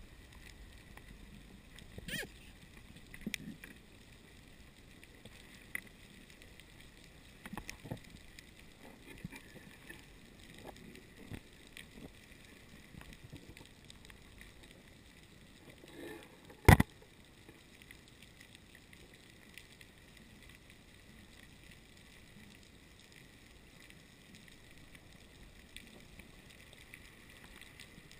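Underwater ambience on a reef dive: a steady faint hiss with scattered clicks and knocks, and one loud sharp crack about 17 seconds in.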